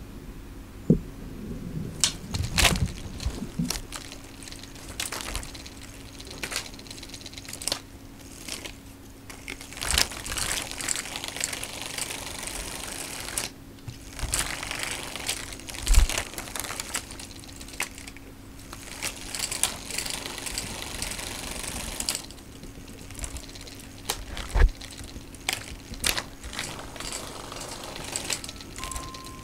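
A cat batting and knocking a plastic toy on carpet: irregular clicks, taps and rattles with light rustling, and a couple of louder knocks, one midway and one near the end, over a faint steady hum.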